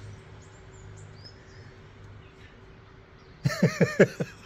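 Husky giving a quick run of five short, rising yelping calls near the end, its excited 'talking' as it trots back in, over faint birdsong.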